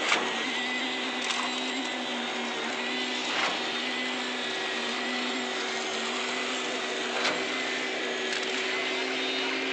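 Steady mechanical hum with a thin high whine from the machinery of a concrete slab pour, broken by a few sharp knocks.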